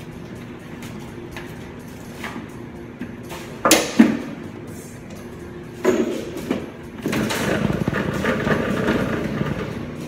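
Steady hum of commercial kitchen equipment, with two sharp clatters about four seconds in, a few knocks around six seconds, and continuous handling and rustling noise in the last few seconds.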